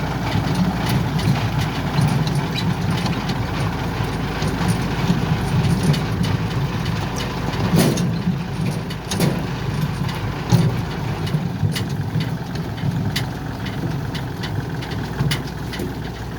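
Yanmar combine harvester's engine running steadily, with scattered clicks and rattles throughout.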